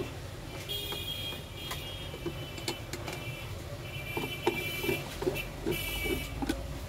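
Cover screws of a sheet-metal direct-on-line motor starter enclosure being undone: squeaky metal scraping and scattered clicks, with a run of knocks in the last couple of seconds as the cover is worked loose.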